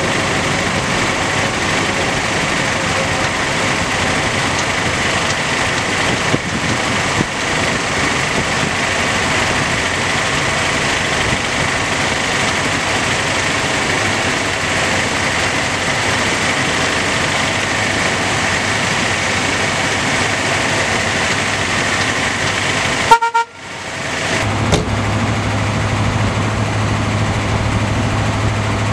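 A 1957 Ford Thunderbird's V8 engine running steadily. About 23 seconds in, the horn gives one short toot. After that the engine idles with a steady low hum.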